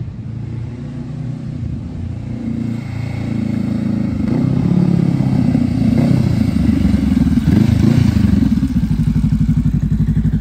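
Honda Rebel 500's parallel-twin engine through a Coffman's Thunder exhaust with the silencer insert fitted. It grows louder as the bike rides up toward the listener, then slows and settles near the end into an idle with an even, pulsing beat.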